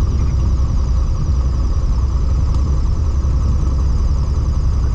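Aircraft engine and airframe noise: a loud, steady low drone with a constant high whine on top.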